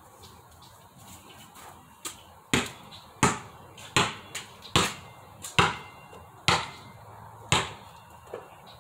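Basketball being dribbled on hard ground: about seven sharp bounces a little under a second apart, starting about two and a half seconds in, with a few fainter knocks between them.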